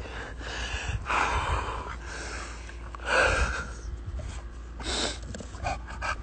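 A person's heavy breathing close to the microphone: breathy huffs and gasps about a second, three seconds and five seconds in, over a steady low rumble.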